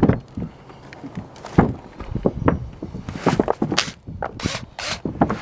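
Irregular knocks, thumps and scuffs of handling work on a metal roof, with a box of screws and boards being moved. Several short bursts of rattling hiss come about three to five seconds in.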